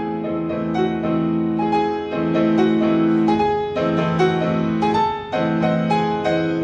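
Background music: held chords under a melody of separate notes, in a piano-like sound.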